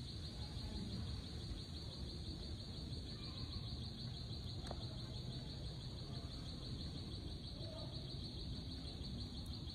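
Insects trilling steadily in one high, even band with a fine rapid pulse, over low outdoor background noise. A single faint click sounds about halfway through.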